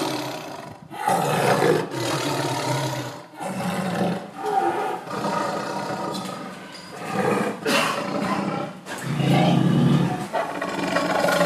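Lion roaring repeatedly: a run of deep calls, each a second or two long, with short breaks between them.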